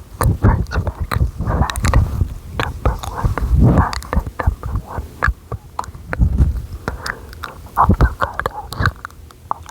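Close-up, semi-inaudible whispering right on the microphone, full of wet mouth clicks, with breath hitting the mic as low thumps.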